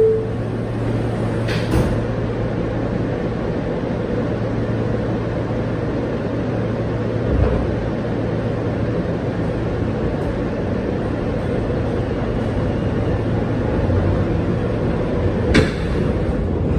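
Steady ventilation hum of a stopped New York City subway car, opening on the last tone of the door chime; the sliding doors shut with a sharp clunk about two seconds in, with a low thump midway and another sharp clunk near the end.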